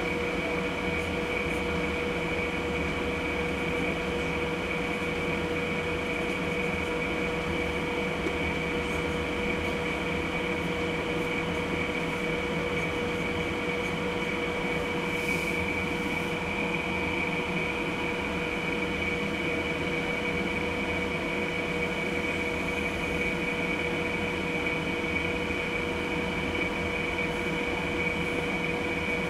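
A steady mechanical hum with a constant high whine, unchanging throughout.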